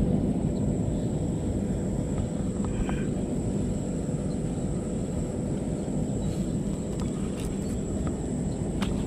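Steady low rumbling background noise, with a thin steady high tone running through it and a few faint ticks near the end.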